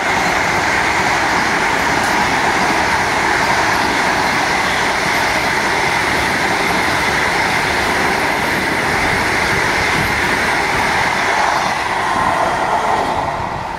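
Vande Bharat Express electric train running past at speed, a loud steady rush of wheels on rails that eases off as the last coach goes by about twelve seconds in.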